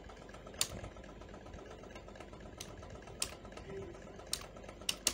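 Computer keyboard keystrokes, about six single clicks spaced irregularly, a second or so apart, over a steady low background hum.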